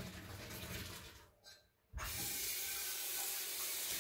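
Boiled pasta being poured out to drain in the kitchen sink, then about two seconds in the cold-water tap comes on and runs steadily to rinse it.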